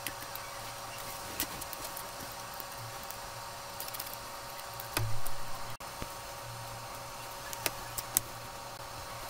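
Small clicks and taps of metal tweezers handling tiny parts on a phone's screen assembly, over a steady low background hum. A louder bump comes about five seconds in.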